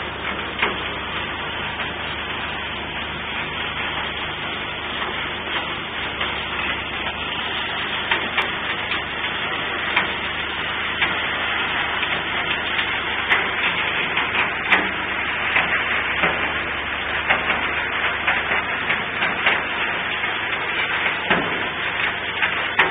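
Gold washing plant and excavator at work: a steady low machine hum under a continuous rushing noise, with frequent sharp clacks and knocks that come thicker in the second half.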